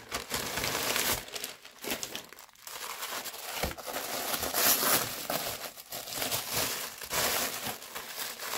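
Parcel packaging crinkling and rustling as it is opened and unwrapped by hand, in a run of rustles broken by short pauses.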